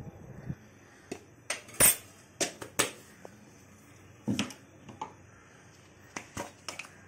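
A spoon clinking and scraping against a small stainless-steel bowl as dry spice powders are stirred together: irregular clicks and taps, the loudest about two seconds in.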